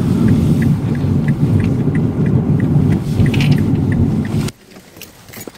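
Steady low rumble of car road and engine noise inside the cabin, with a turn signal ticking about three times a second while the car turns in. The ticking stops about three seconds in, and the rumble cuts off suddenly near the end.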